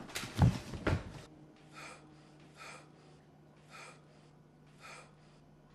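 Scuffle of a struggle with several sharp thuds in the first second or so, then a person breathing hard, a gasping breath about once a second over a faint low hum.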